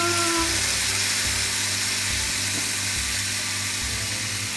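Wet chopped cabbage and grated carrot sizzling in hot oil in a frying pan, a steady frying hiss as the cabbage is tipped in.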